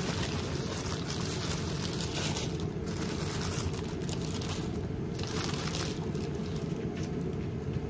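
Tissue paper crinkling and rustling as it is handled and pulled back by hand, continuously, over a steady low background rumble.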